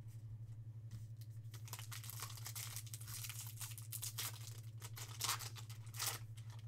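A foil trading-card pack wrapper being torn open and crinkled by hand, in many short crackling rustles, with a couple of louder tears near the end.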